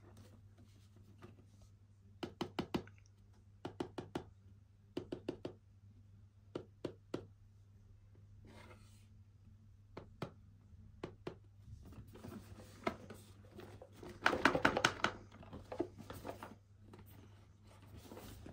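Fingernails tapping on a cardboard box in quick groups of three or four taps, with a brief scratch between them. About fourteen seconds in comes a louder, denser run of tapping and rustling.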